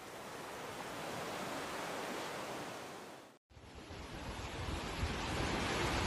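Small sea waves washing onto a sandy beach, a soft hiss that swells and then fades. It drops out for a moment about three and a half seconds in, then returns louder, with a low rumble under the surf.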